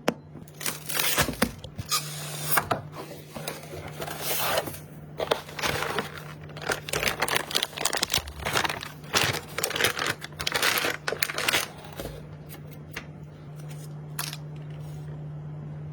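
Packaging being handled, rustled and torn in repeated bursts, with a few sharp clicks and a steady low hum underneath. The handling stops about twelve seconds in, leaving the hum and an occasional click.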